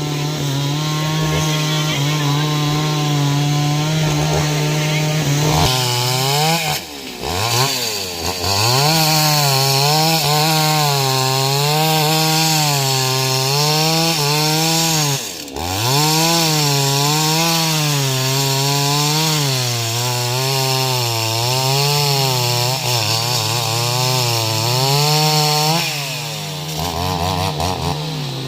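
Stihl MS 381 two-stroke chainsaw running under load while cutting wood, its engine pitch wavering up and down. The engine dips sharply about a quarter of the way in and again near the middle, then recovers.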